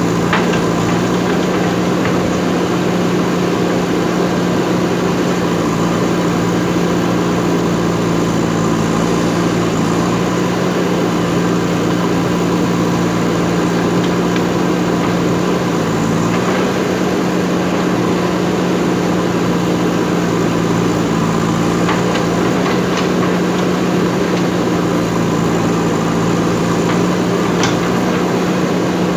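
JCB backhoe loader's diesel engine running at a steady speed, with a few faint knocks here and there.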